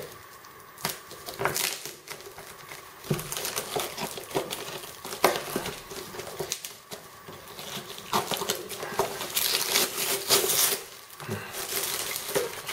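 Scissors snipping and scraping through a cardboard box and its tape, with scattered sharp clicks. Then a denser rustle and crinkle of plastic wrap and packaging near the end.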